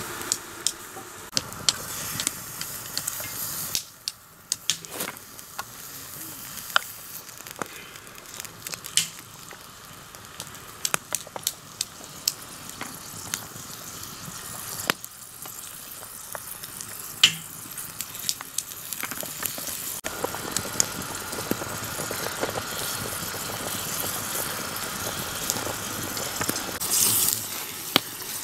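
Ground meat frying in hot oil in a small pan over an open wood fire: a steady sizzle with scattered sharp crackles and clicks.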